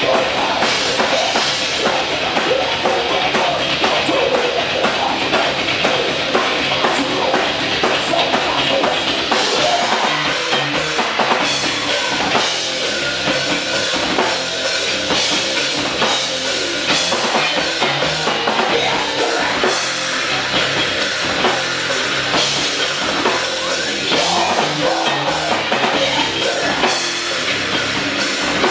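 Rock band playing, with a loud, busy drum kit to the fore. The music is continuous and dense.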